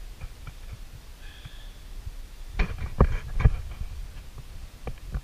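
Handling noise from opening small tubes of JB Weld epoxy: a few sharp clicks and knocks, the loudest a pair about three seconds in, over a low steady rumble.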